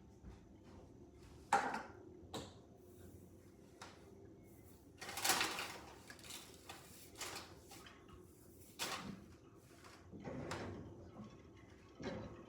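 Gusty wind coming in separate short rushes of noise, the longest about five seconds in, with a sudden thump about a second and a half in.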